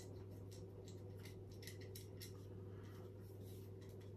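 Faint, scattered small clicks and rattles of a screwdriver being taken from its packaging and handled, over a low steady hum.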